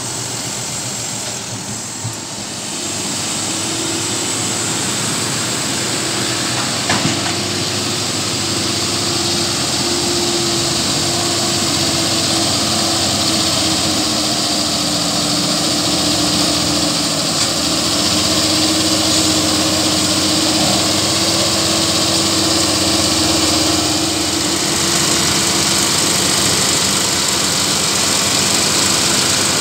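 Claas Arion tractor running under steady load, pulling a Claas Rollant 454 Uniwrap round baler whose pickup is gathering chopped maize. The engine and baler drive make a continuous machine noise with a wavering mid-pitched hum. It grows a little louder a few seconds in as the rig comes closer.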